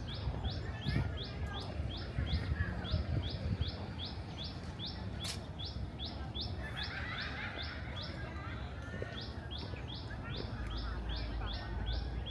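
Birds calling: one high chirp repeated evenly about three or four times a second, pausing briefly twice, with softer twittering beneath it over a low rumble.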